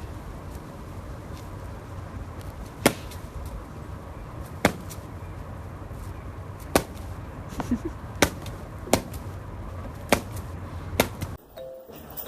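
A series of about seven sharp taps or knocks at irregular intervals over a steady low hiss.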